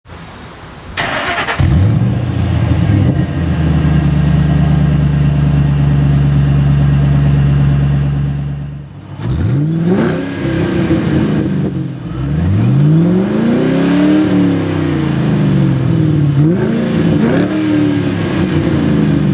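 2005 Saleen S281 Supercharged V8 starting about a second in through its center-mounted dual exhaust. It then holds a steady engine speed for several seconds. After that it is revved repeatedly: long rising and falling sweeps in pitch, then a few quick blips near the end.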